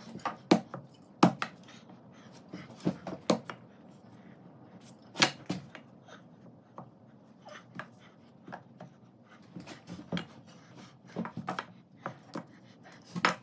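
Irregular light knocks and clicks of wooden vise parts being handled and lined up against each other on a bench. The loudest come about a second in, about five seconds in and right at the end.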